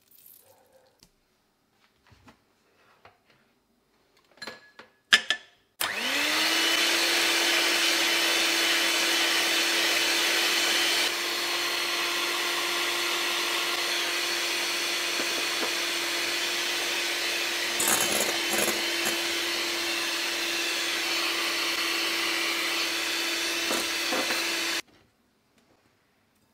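Russell Hobbs electric hand mixer whipping egg whites in a glass bowl: the motor spins up with a rising hum about six seconds in, runs steadily, a little quieter from about eleven seconds, with the beaters briefly rattling against the bowl around eighteen seconds, and cuts off suddenly near the end. Before it starts, a few light clicks and knocks.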